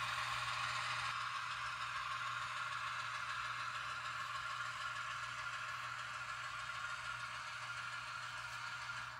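HO scale model diesel locomotive running slowly along the track while pulling a boxcar and a covered hopper: a steady mechanical running sound with a low hum underneath, easing slightly toward the end.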